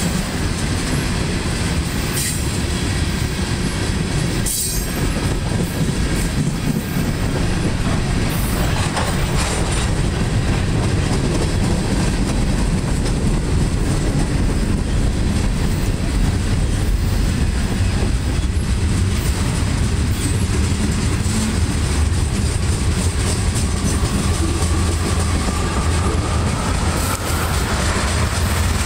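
Freight train's tank cars and covered hoppers rolling past close by: a steady rumble of steel wheels on the rails, with scattered clicks as the wheels pass over rail joints. A faint wheel squeal rises near the end.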